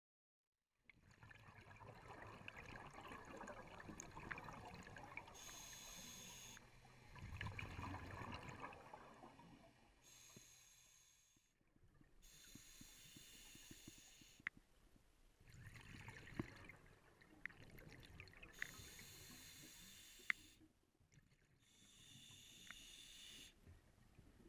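Scuba diver breathing through a regulator underwater, faint: a hissing inhalation about every six seconds, four in all, alternating with low bubbling exhalations, with a few sharp clicks.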